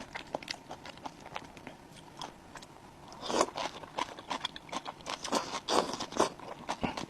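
Close-miked eating sounds: a person chewing and biting food, with many quick wet mouth clicks and small crunches, sparse at first and busier and louder from about three seconds in.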